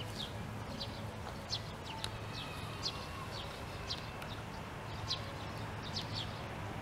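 A small bird chirping over and over: short, high chirps that fall in pitch, about two a second, over a steady low hum.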